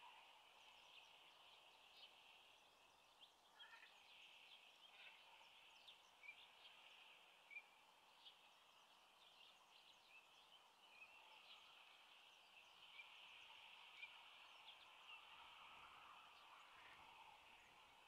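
Faint outdoor ambience: many short, high chirps of small birds scattered over a steady high hiss.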